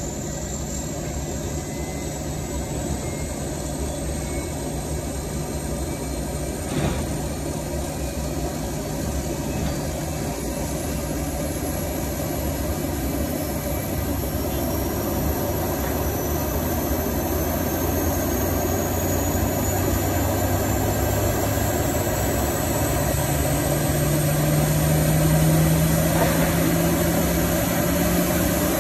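Boeing 757's tail-mounted gas-turbine auxiliary power unit spooling up during a start: a steady rumble under a high whine that climbs slowly in pitch and grows louder. A brief click sounds about seven seconds in.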